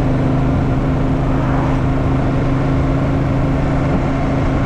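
Motorcycle engine running steadily at low revs in third gear while cruising, with wind rush over the microphone.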